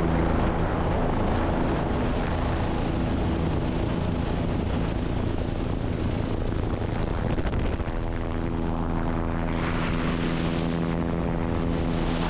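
Helicopter's rotor and turbine engine running steadily at takeoff power as it lifts off and climbs away, a dense hum with a few low tones held underneath. The low tones get stronger and a rushing hiss rises from about two-thirds of the way in.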